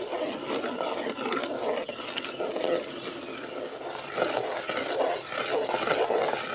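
Semolina poured into boiling water in an aluminium pot and stirred in with a steel spoon: an uneven bubbling, churning noise as the mixture thickens, with the spoon now and then clicking against the pot.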